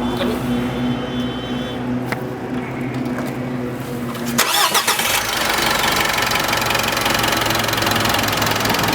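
Mitsubishi Pajero Sport's 2.5-litre diesel engine cranking and catching about four and a half seconds in, after a steady hum, then running at a steady idle.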